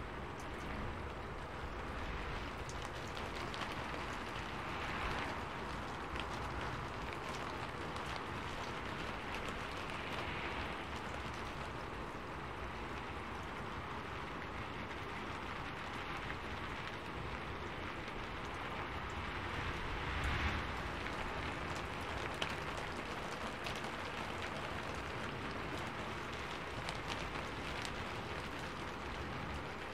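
Steady rainfall, with individual drops tapping throughout and the rain swelling briefly a few times.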